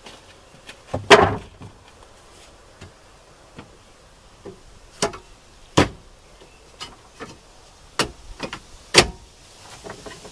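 Wooden 2x4 boards knocking and clunking as they are set down on the van's floor and against a wooden bed frame: a string of sharp knocks, the loudest about a second in, with more around five, six, eight and nine seconds in.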